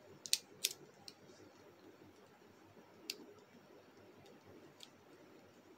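Small, sharp clicks of hard plastic toy parts being folded and snapped into place on a Bakugan Geoforge Dragonoid piece (Montrapod): a quick cluster in the first second, then single clicks about three and five seconds in.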